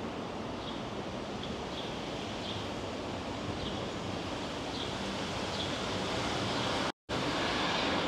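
Steady outdoor city ambience: an even rushing wash of traffic and wind on the microphone, with faint short high chirps every half second or so. The sound drops out completely for a split second near the end.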